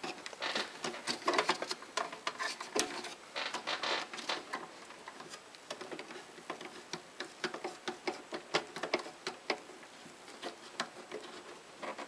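Brass nuts being turned by hand on the threaded stem of a euro-style torch connector in a MIG welder's wire-feed unit: irregular small metal clicks and taps, thicker in the first few seconds and sparser after.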